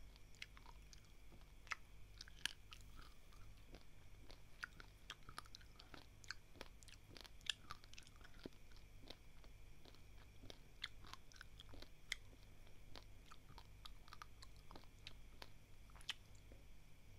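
Dry, uncooked basmati rice grains crunched between the teeth: many small, sharp cracks at an irregular pace, heard close up.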